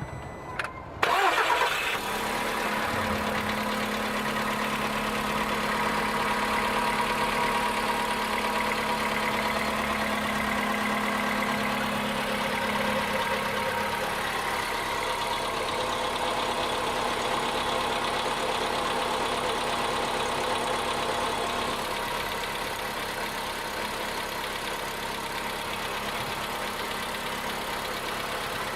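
Volkswagen Polo 1.6-litre CFNA four-cylinder petrol engine starting about a second in, then idling steadily. It carries a knock that the owner cannot place: worn hydraulic lifters or the pistons and connecting rods.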